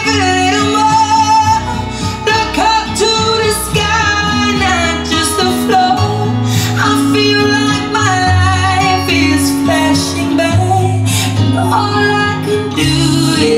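A song with a female lead vocal holding long sung lines over a band accompaniment with a steady bass line.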